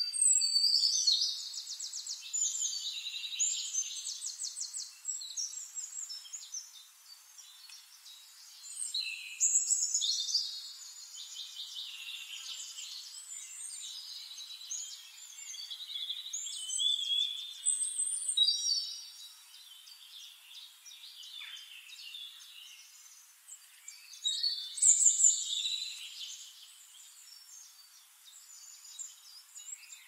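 Songbirds singing: bursts of high, rapid twittering and trills every several seconds, the loudest near the start and about two-thirds of the way through.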